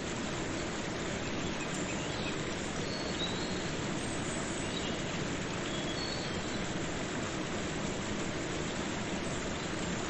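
Waterfall rushing steadily, with a few faint high chirps over it.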